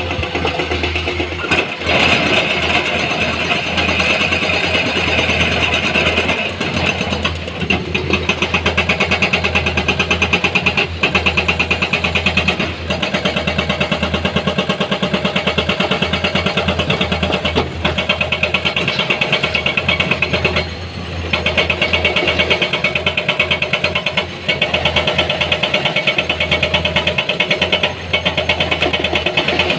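Heavy diesel engine of earthmoving machinery running steadily with a rapid, even pulse, with a few brief knocks and short dips in level.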